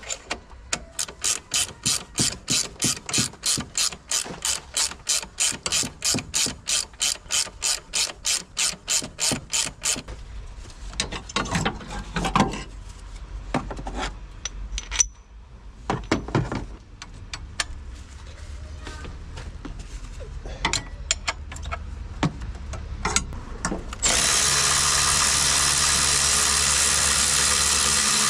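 Hand ratchet wrench clicking in an even run of about four clicks a second as a fastener is wound out, then irregular metallic knocks and clanks of parts being handled. Near the end a steady loud rushing noise starts.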